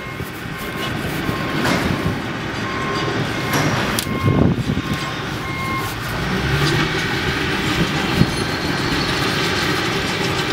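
Heavy equipment running with a steady rumble, and a reversing alarm beeping at intervals through the first part.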